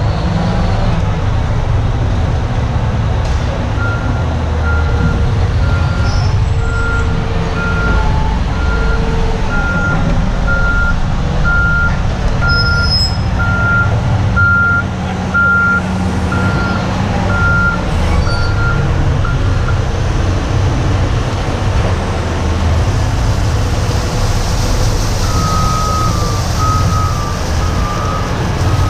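Diesel engine of a Cat 966M wheel loader running steadily under load. A reversing alarm beeps at an even pace for about fifteen seconds. Near the end, a second back-up alarm of slightly lower pitch starts beeping.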